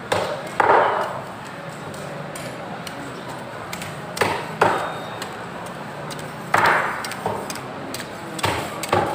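Heavy cleaver chopping through a large mahi-mahi's backbone onto a wooden chopping block: about eight sharp strikes, mostly in pairs a few seconds apart.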